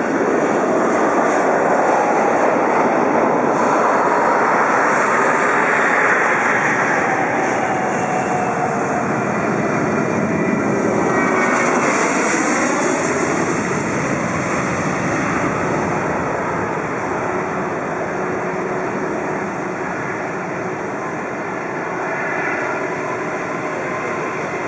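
Boeing 737-700 Business Jet's CFM56-7 turbofans at takeoff power during the takeoff roll. The jet roar builds as the aircraft approaches and passes close by about twelve seconds in, its engine whine sliding down in pitch as it goes past, then grows fainter as it climbs away.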